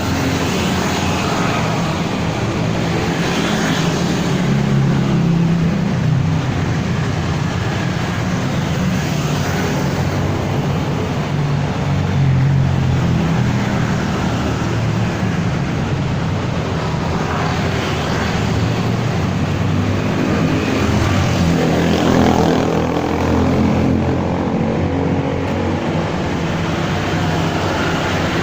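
A cat purring close to the microphone as it is stroked: a steady low rumble that swells and eases every few seconds, with fur rustling over it.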